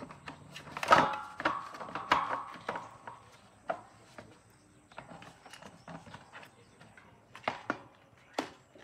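Metal parts and tools being handled and knocked together: a loud clank about a second in that rings briefly, then scattered lighter clicks and knocks, with two sharper knocks near the end.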